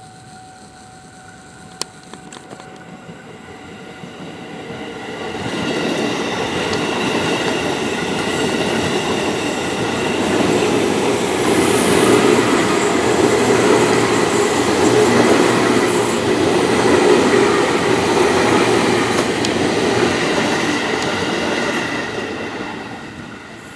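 Electric multiple-unit commuter train approaching and passing close by, its wheels running on the rails. The sound builds over the first five seconds, stays loud while the cars go past, and falls away near the end.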